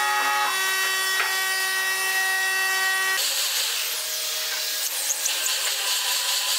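A power tool motor running with a steady high whine. About three seconds in it gives way to a corded electric drill boring into a pine board, with a noisier cutting sound over its motor note.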